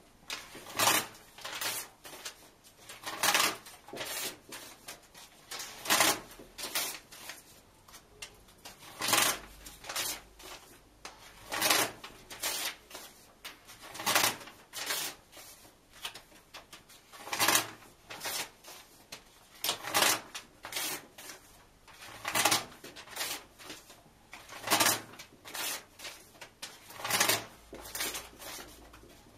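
Book pages being ripped out and torn in half one after another: a sharp tear about every two and a half seconds, with softer rips and rustles of paper between.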